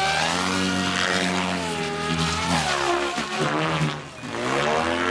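SAB Goblin Kraken electric 3D RC helicopter's rotor and motor whine rising and falling in pitch as it throws aerobatic manoeuvres, with a brief dip and swoop in pitch about four seconds in.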